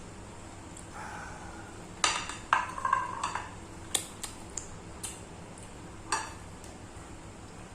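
Dishes and cutlery clinking as tableware is handled: a cluster of clattering, ringing clinks about two seconds in, then a few lighter single clicks.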